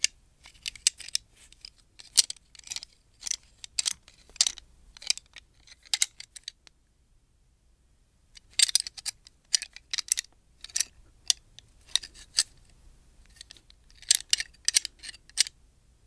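Gun parts being handled: an irregular run of sharp clicks and clacks. About a third of the way through there is a pause of roughly two seconds, then the clicking resumes.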